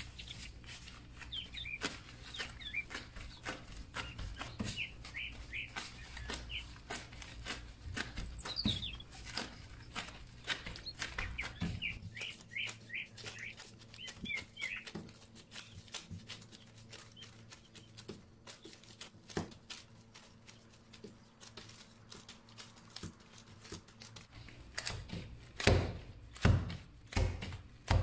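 Pizza dough being kneaded by hand on a countertop: soft taps and rubbing of dough and rubber gloves against the counter, with birds chirping in the background through the first half. Near the end, a series of louder thumps as the dough is pressed and pushed against the counter to build its elasticity.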